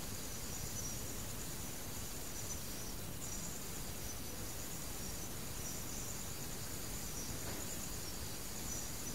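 Faint, steady chirping of crickets in a high band over low background hiss.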